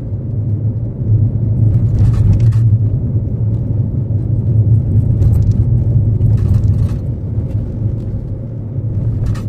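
Suzuki Karimun Wagon R on the move: a steady low rumble of engine and road noise, with four brief hissing surges along the way.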